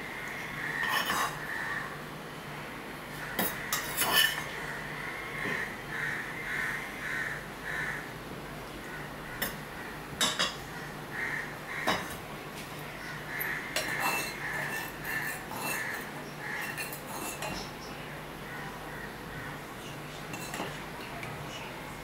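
Hand-eating at a table: a metal spoon clinks and scrapes against serving bowls and a plate, and rice is mixed by hand on the plate. Through much of it runs a series of short, high calls or squeaks repeating about twice a second.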